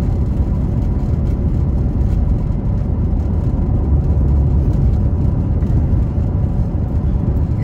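Steady low rumble of a car's road and engine noise while driving.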